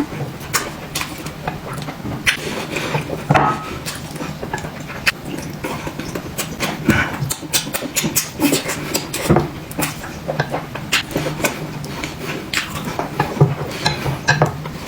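People eating: close chewing and lip-smacking, with irregular sharp clicks and taps throughout over a low steady hum.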